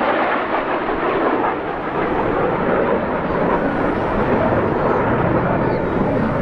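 Steady rushing jet noise from a formation of BAE Hawk T1 jet trainers flying past.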